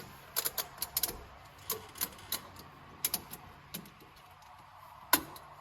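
Irregular sharp metal clicks and rattles from tie-down strap hardware being worked, with one louder click about five seconds in.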